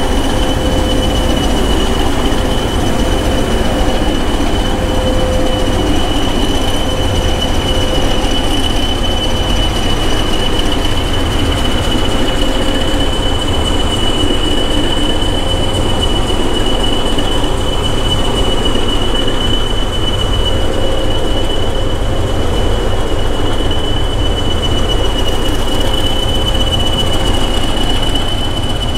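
English Electric Class 20 diesel locomotive standing with its engine idling: a steady low rumble with a constant high turbocharger whistle on top.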